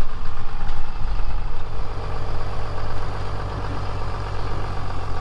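Large vehicle's engine idling, a steady low rumble.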